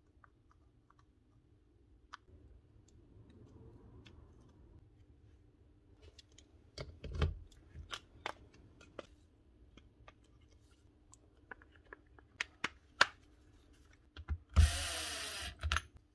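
Plastic and metal parts of a dismantled Makita cordless drill being handled and fitted by hand: scattered clicks and knocks, one louder knock about seven seconds in. Near the end comes a loud noisy burst lasting just over a second.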